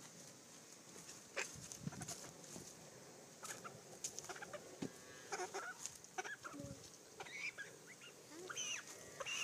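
Cornish Rock meat chicken clucking in short, scattered calls as it is held up by the legs and handled, starting about a second and a half in.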